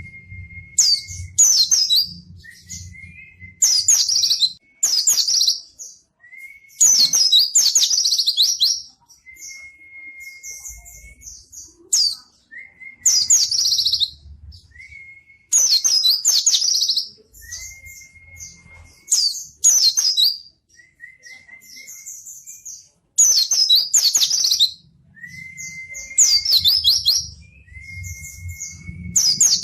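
White-eye (pleci) singing: bursts of rapid, high twittering phrases about every two seconds, each about a second long, with a short, steady whistled note between them.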